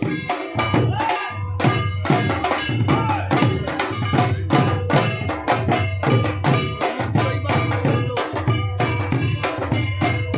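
Dhol barrel drum beaten in a steady rhythm of about three to four strokes a second, deep strokes mixed with sharper slaps, over a steady droning tone.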